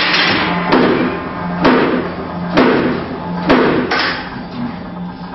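Metal parts of a razor wire machine being struck with a hammer during assembly: about six heavy blows, roughly one a second, each ringing briefly, stopping about four seconds in.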